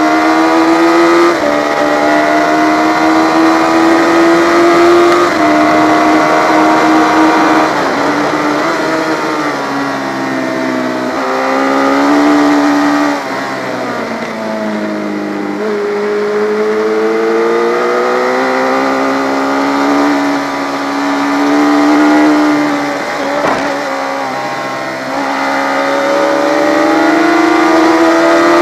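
Yamaha FZ600 inline-four race motorcycle being ridden hard on track. The engine note holds high, drops away under braking and downshifts about a third of the way in and again near the middle, then climbs as the bike accelerates. It drops once more briefly about three quarters of the way through and rises again.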